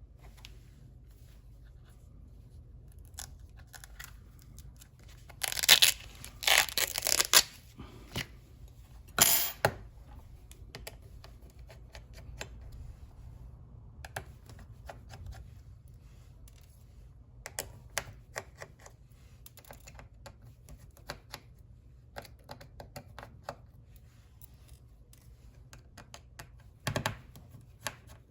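Hands working on a computer's hard drive and its casing: scattered small clicks and taps, with loud scraping, rattling handling noises about six seconds in, again near nine seconds and briefly near the end.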